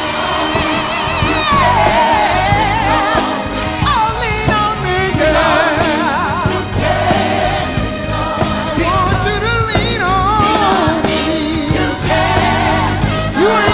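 Live band and gospel choir performing a soul-gospel song, with solo voices singing over the choir in wavering vibrato and a steady drum beat underneath.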